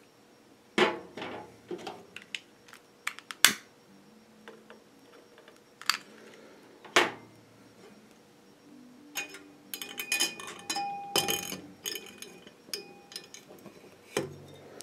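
Glass and metal clinks as a Bradley and Hubbard central-draft kerosene lamp's glass chimney and brass burner parts are handled: a few separate sharp knocks, then a quick run of rattling clinks with a short ring from about nine to twelve seconds in.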